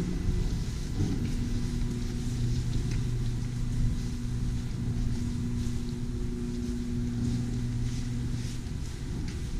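Steady low rumble with a constant low droning hum, like machinery or ventilation running in a large hall, with a few faint clicks and scuffs over it.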